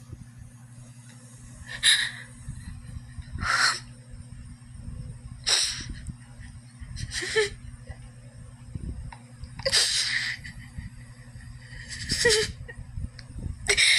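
A person crying in distress, with short, sharp gasping sobs about every one and a half to two seconds, over a steady low hum.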